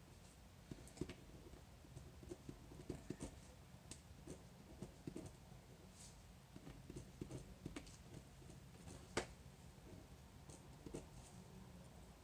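Near silence with faint, irregular small taps and clicks, the sharpest about nine seconds in.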